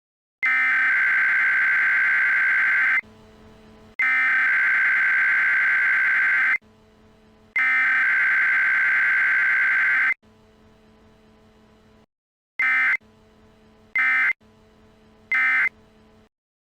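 Emergency Alert System SAME data bursts: a screechy digital header sent three times, each about two and a half seconds long, then the short End of Message burst sent three times. A faint hum sounds in the gaps.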